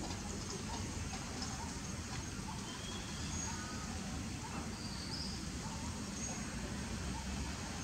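Outdoor ambience: a steady low rumble with a few faint, short high chirps scattered through it.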